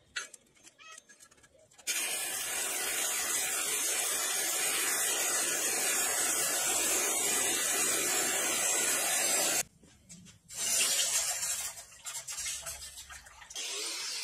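Coal forge fire with its air blast running as a loud steady hiss, which stops abruptly. After a short pause, hot steel is plunged into a bucket of water and hisses and sputters as it quenches, dying away over a few seconds.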